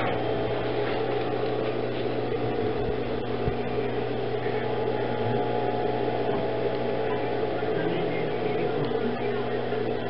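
Steady electric hum of an industrial sewing machine's motor left running while nothing is being stitched.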